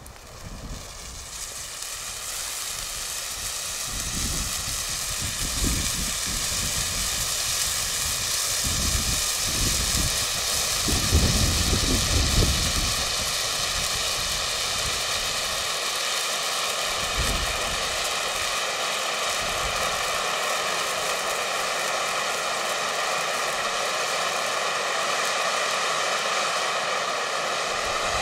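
An expired pyrotechnic red distress hand flare, 30 to 35 years old, burning with a steady, fairly loud hiss that builds over the first few seconds after ignition and then holds even. There are a few uneven low rumbles in the middle. The old flare has lit and is burning properly.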